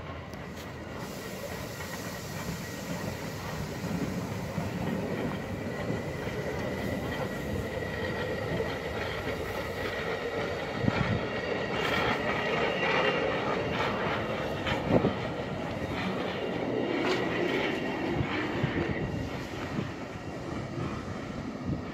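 Steam locomotive running past, its wheels clattering over the rails, with a steady high squeal in the first half and several sharp clanks later on.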